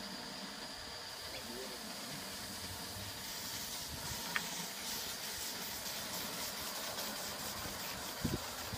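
Steady steam hiss from a gauge 1 Aster Union Pacific FEF 4-8-4 live steam model locomotive standing in steam on its first test, growing a little brighter about three seconds in. A single sharp click comes about four seconds in, and a couple of soft knocks come near the end.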